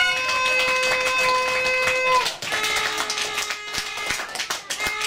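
A long steady horn blast that sags in pitch as it cuts off about two seconds in, followed by a second, lower blast of under two seconds, with scattered claps and taps throughout.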